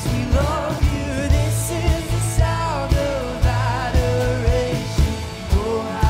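Live worship band playing: a man sings the melody over strummed acoustic guitar, bass guitar and a drum kit keeping a steady beat.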